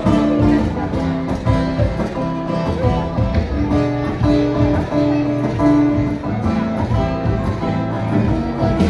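Live acoustic guitar and keyboard music playing continuously, plucked guitar notes over long held notes.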